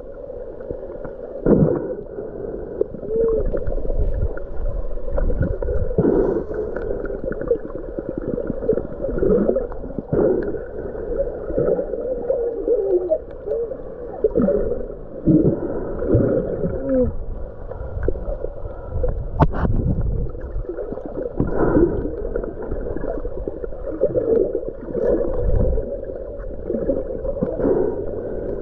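Muffled underwater gurgling and movement of water while snorkelling, with short low sliding tones recurring throughout and a single sharp click about two-thirds of the way through.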